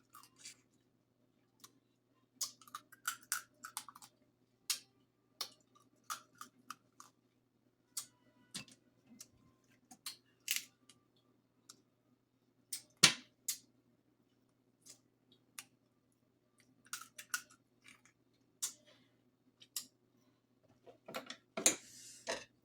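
Crab-leg shells being cut and cracked open: an uneven string of sharp clicks and snaps, with one loud crack about 13 seconds in and a denser cluster near the end.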